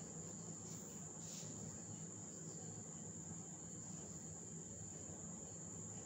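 Faint room tone: a steady high-pitched whine over a low hum, with no speech.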